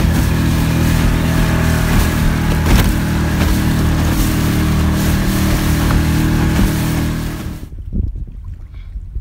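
A boat engine running steadily with a low, even hum and hiss, stopping abruptly about seven and a half seconds in; after that, only a quieter rumble of wind and water remains.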